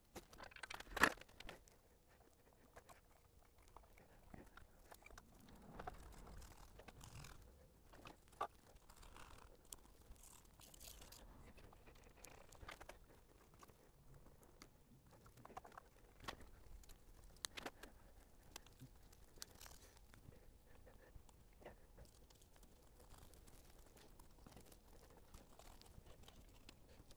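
Quiet, sparse hand work on an engine on its stand: faint clicks, taps and small scrapes of tools and parts on metal, with one sharper knock about a second in and a few lighter ones later.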